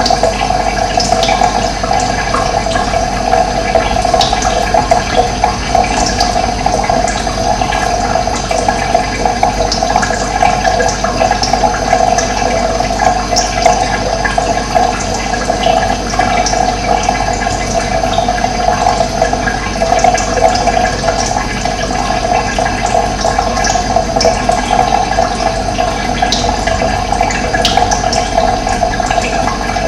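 Steady rushing of running water, with brief high bird chirps scattered throughout.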